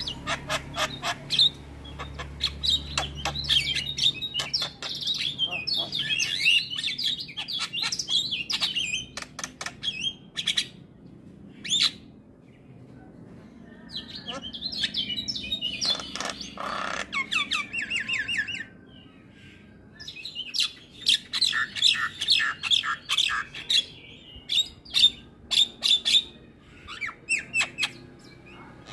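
Javan myna singing a long, varied chattering song of rapid clicks and quick warbled whistles, in several bursts broken by short pauses.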